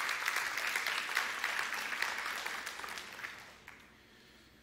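Congregation applauding, the clapping dying away about three seconds in.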